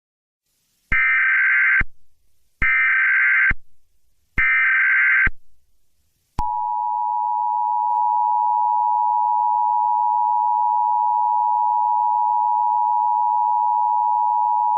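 Emergency Alert System alert tones: three short bursts of SAME header data tones, each just under a second, then the steady two-tone EAS attention signal starting about six seconds in.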